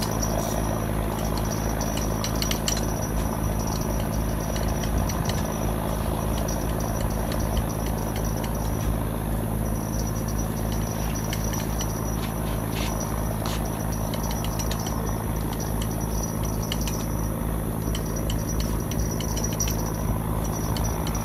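A motor running steadily, a low even drone with several fixed pitches, with a thin high tone that comes and goes and a few faint ticks over it.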